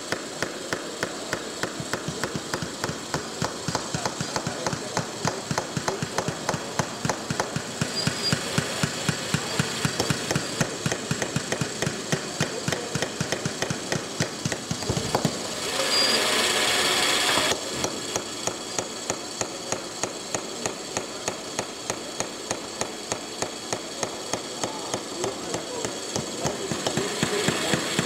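A steady run of sharp knocks, like hammering, with a loud hiss for about two seconds a little past the middle.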